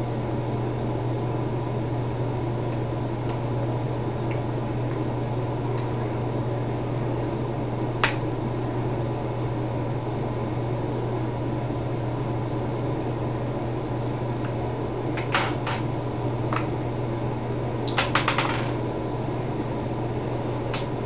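Steady background hum with a few sharp small clicks and taps as Allen screws and grip panels are taken off a paintball marker: a single click about a third of the way in, a few more in the second half, and a quick rattle of clicks near the end.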